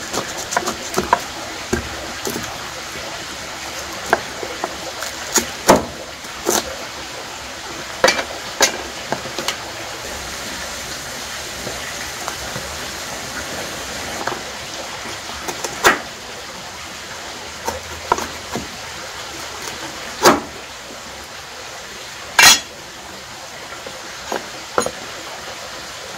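Kitchen work sounds: scattered sharp clicks and clacks of utensils and cookware over a steady hiss, with the loudest knocks near the end.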